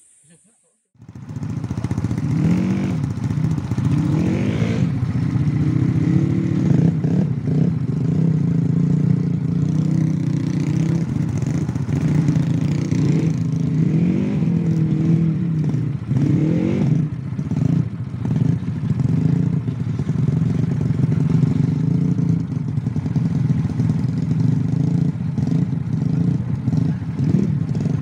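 Trail-modified automatic scooter engine running and revving up and down as the bike rides a rough dirt trail, with rattling and knocking from the bike over the bumps. The engine sound cuts in about a second in.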